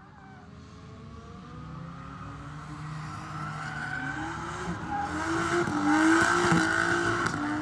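Drift car sliding sideways through a corner, its engine revving high with the pitch rising and wavering as the throttle is worked, over tyres squealing and scrubbing. It grows steadily louder as it approaches and is loudest about six seconds in as it passes close.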